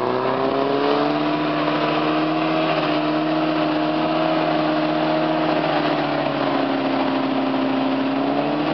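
Bv202 tracked vehicle's four-cylinder petrol engine revving hard and held at high revs as it labours through deep mud and water. The pitch climbs at the start, sags a little under load, then drops near the end.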